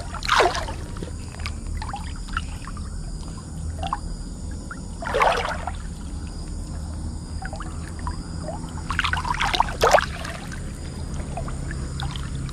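Shallow river water splashing and sloshing around a hand digging along the riverbed for freshwater mussels. There are louder splashes about half a second in, around five seconds and twice near ten seconds, over a steady low rumble.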